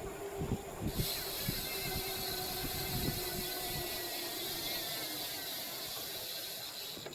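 Bicycle on the move: wind buffeting the microphone with irregular low thumps, and a steady high hiss that sets in about a second in.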